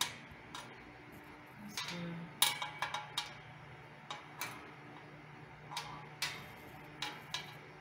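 Irregular light metallic clicks and taps as a small wrench and Allen key work a bolt and nut on a steel futon frame bracket, with a quick run of clicks about two and a half seconds in.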